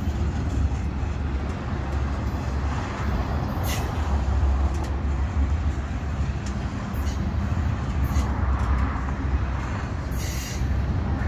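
Double-stack intermodal well cars of a freight train rolling past, a steady heavy rumble of steel wheels on rail. Two brief high-pitched squeals cut through, about four seconds in and near the end.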